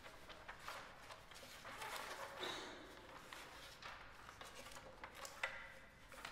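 Faint rustling and small knocks as a string quartet settles between pieces, with one sharper click about five seconds in.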